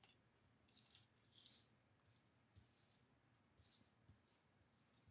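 Faint rustles and slides of die-cut paper pieces being picked up and pushed about on a tabletop, several short scrapes a second or so apart.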